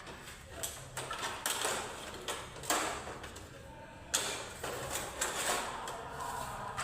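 Irregular clicks, knocks and short scraping sounds of tools or parts being handled.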